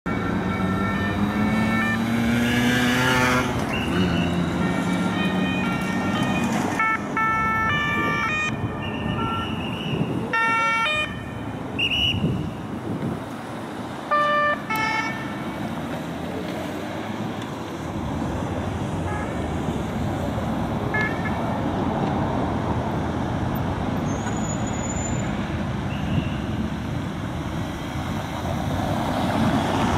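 Police escort motorcycles and cars in city traffic. An engine revs up in rising pitch at the start, several short siren blasts sound in the first half, and steady traffic noise follows.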